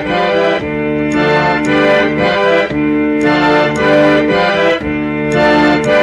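Harmonium, a pumped reed organ, playing sustained chords in a slow progression, with the held notes shifting every second or so.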